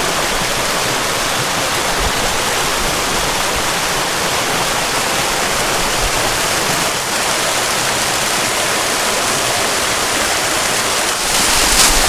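Steady rush of a small waterfall: water pouring over smooth rock slabs into a pool. It grows louder and brighter about a second before the end.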